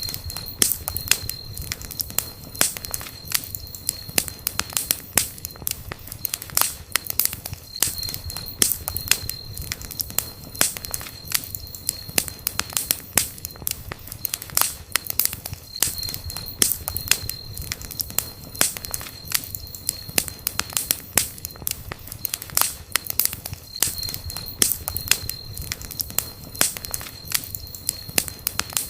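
Campfire burning, the wood popping and crackling in irregular sharp snaps over a low steady rush of flame. A faint high, steady tone comes and goes every several seconds.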